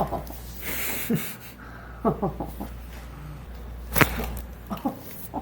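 A person's short groans and a breath, with a sharp knock at the start and a louder one about four seconds in.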